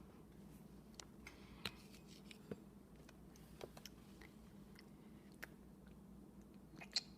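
Faint, scattered small clicks and mouth smacks of a baby eating baby cereal, the loudest near the end, over quiet room hum.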